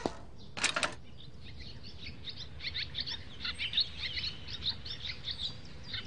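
Small birds chirping, many short high chirps in quick succession, starting about a second and a half in. A brief rattle comes just before, under a second in.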